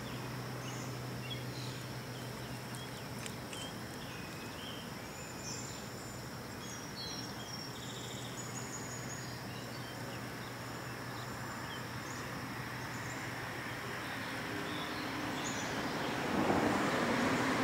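Outdoor ambience: a steady rushing hiss, with birds chirping now and then and a steady high insect drone. The hiss grows louder near the end.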